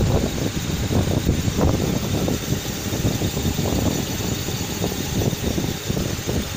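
Vertical boring mill taking a finishing cut in a steel bearing-housing bore: the machine runs steadily while the boring tool cuts with a continuous, irregular crackle over a steady hiss.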